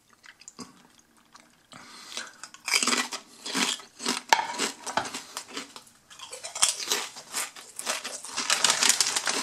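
Crunchy cauldron-cooked jalapeño cheddar potato chips being chewed. The crunching comes in irregular bursts of crackling, starting about two seconds in.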